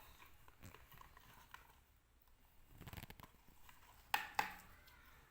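Faint sounds of slime being handled by hand: soft sticky clicks and rustles, with two sharp clicks close together about four seconds in.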